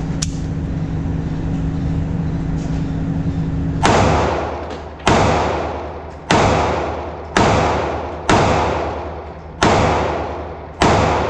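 Ruger EC9s 9mm pistol fired seven times at a slow, steady pace, one shot every second or so, starting about four seconds in, each shot with a long echoing tail. A steady low hum runs before the shooting starts.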